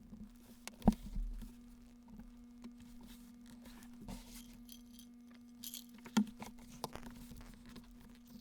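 A steady low electrical-sounding hum with scattered sharp taps and clicks, the two loudest knocks about a second in and about six seconds in.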